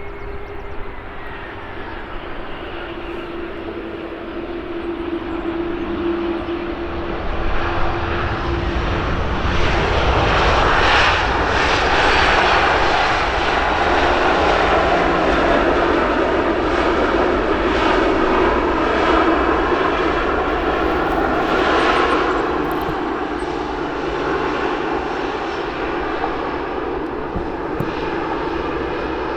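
Jet airliner's engines passing by. The sound builds to a peak about ten seconds in and then slowly fades, with steady engine whine tones running through it.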